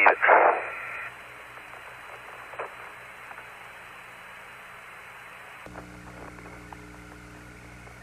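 Apollo lunar-surface radio audio. Two loud, short crackling bursts in the first second give way to steady radio hiss with a few faint clicks. About six seconds in, the background switches abruptly to a low hum.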